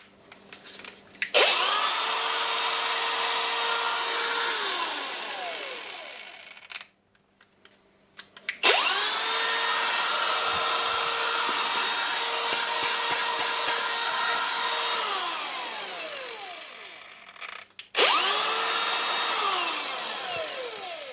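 Milwaukee M18 Fuel brushless cordless angle grinder run with no load, three times. Each run spins up quickly to a steady high whine, then coasts down with a falling pitch when the switch is released. The motor starts every time and runs smoothly on its freshly replaced bearing.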